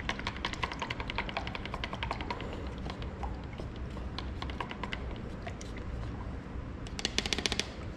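Wooden stir stick clicking against the sides of a plastic mixing cup as blue paint is stirred together with reducer, two parts paint to one. The taps come fast and even at first, then sparser, with a quick flurry near the end, over a low steady hum.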